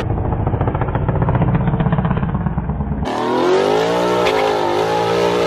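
Twin-turbo 5.0 Coyote V8 of a 2019 Mustang GT launching on a drag strip. First comes a close, rapidly pulsing, muffled-sounding engine note at high revs as the car leaves the line with its rear tyres spinning. About three seconds in, the engine's pitch rises and then holds as the car pulls away down the track.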